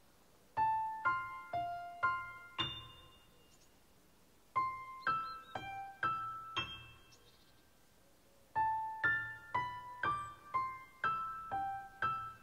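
A light keyboard melody of short, bell-like notes, about two to three a second, each ringing briefly and fading. It comes in three short phrases, with brief pauses between them.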